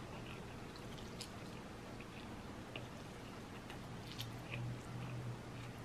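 Faint chewing of a mouthful of jjajangmyeon noodles, with a few soft, scattered mouth clicks over a low steady hum.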